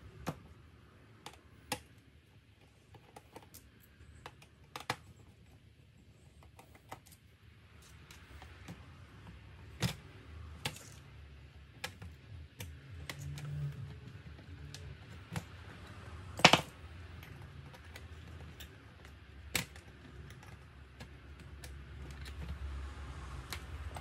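Irregular light clicks and taps as hands and small tools handle an opened laptop's motherboard and plastic chassis, with one louder click about two-thirds of the way through.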